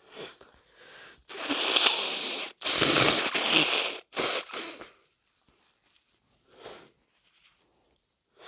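A person with a head cold blowing their nose forcefully, two long wet blows and a shorter third. Short sniffs come before and after.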